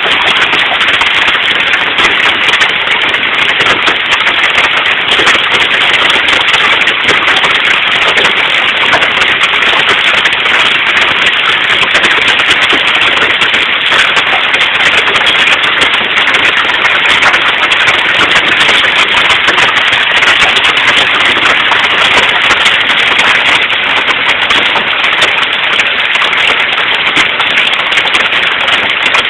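Hail pelting down in a loud, steady clatter of countless small, rapid impacts.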